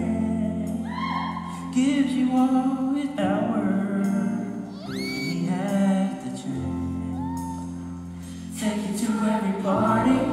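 Music: a voice singing held notes over sustained instrumental accompaniment.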